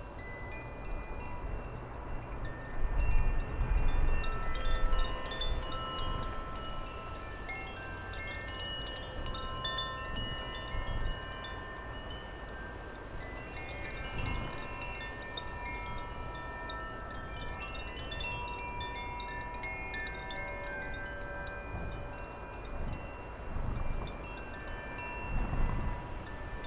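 Wind chimes ringing, many long overlapping tones struck again and again as the breeze moves them. Gusts of wind rumble on the microphone a few seconds in and again near the end.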